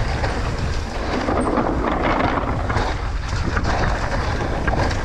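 Wind buffeting the on-bike camera microphone over the rumble and rattle of a mountain bike's tyres rolling down a dirt trail at speed.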